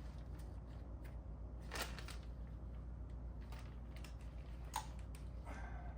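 Scattered light clicks and rustles of small parts being handled, over a steady low hum.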